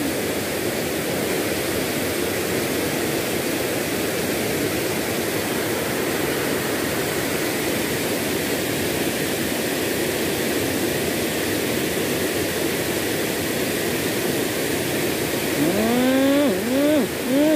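Steady rushing of a small waterfall and a fast, rain-swollen stream. Near the end a pitched sound with repeated rising swoops joins in over it.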